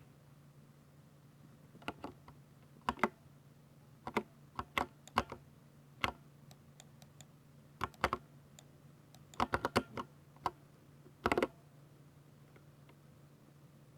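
Keystrokes on a 60% mechanical keyboard with Ducky silver switches: irregular single key presses and short bursts of a few keys, with pauses between them.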